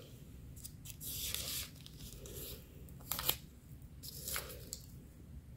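Faint scattered snips, scrapes and rustles of a hospital wristband being picked and snipped at with a small cutting tool that fails to cut through it, with a longer rustle about a second in.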